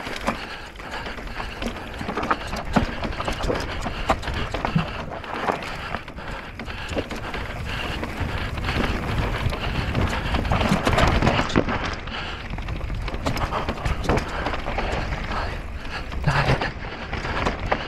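Electric mountain bike descending a rough, rocky trail at race speed: a constant clatter of knocks and rattles from the tyres, chain and frame striking over rocks, over a steady low rumble.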